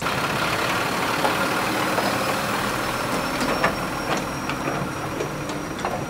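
Diesel engine of a pig transport truck running close by, a steady loud noise with a few short sharp sounds over it.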